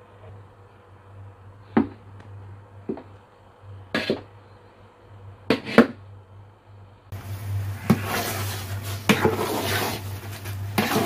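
Metal spoon knocking sharply against a steel pot five times as lumps of desi ghee are worked into ground chana dal, then, from about seven seconds in, continuous scraping and knocking of the spoon stirring the thick dal paste against the pot.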